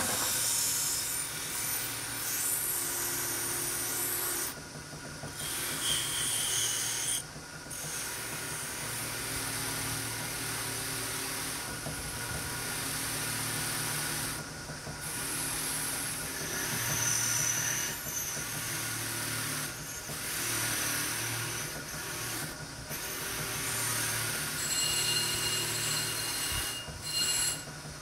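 Abrasive tool working a part: a continuous scraping hiss with a low steady hum under it, broken by short pauses every few seconds.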